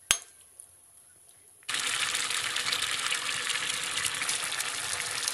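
A sharp click, then from about two seconds in a steady sizzling and bubbling of grated carrots and sugar cooking down in a steel pot as their juice boils off.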